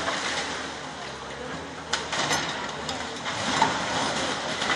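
Hyundai excavator's diesel engine running as it demolishes a house, with a few sharp knocks of breaking masonry around two and three and a half seconds in.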